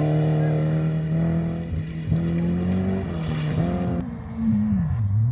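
Volvo saloon rally car accelerating hard, its engine revs climbing and dropping with several quick gear changes. About four seconds in the sound cuts abruptly to a duller engine note that slows and then picks up again.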